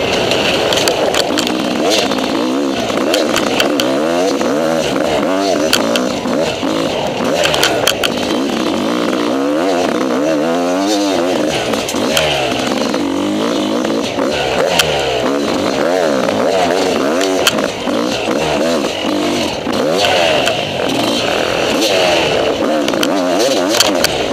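Enduro motorcycle engine heard onboard, ridden hard on a dirt track: its pitch rises and falls over and over as the throttle is opened and shut, with scattered sharp knocks.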